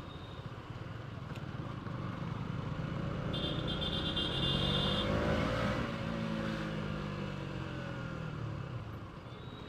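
A motor vehicle engine whose pitch and loudness rise to a peak about halfway through, then fall away.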